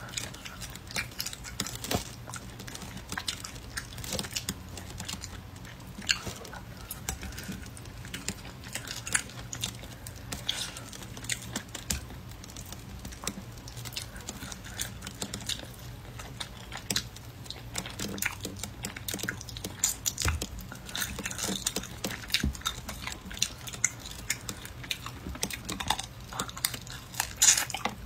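Close-miked chewing and biting of dry, chewy meat, with many small irregular clicks of the mouth working the tough pieces.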